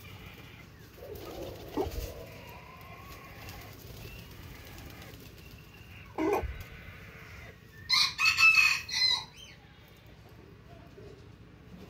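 A rooster crows once, loudly, for a little over a second, about eight seconds in. Before it come a few shorter, lower calls from the chickens and fainter pitched calls.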